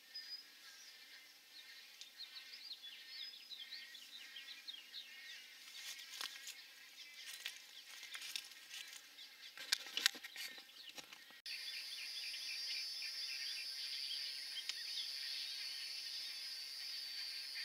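Rookery ambience of rapid, high chattering calls with scattered clicks. About two-thirds of the way through, the sound jumps suddenly louder and a steady high insect buzz starts under the chatter.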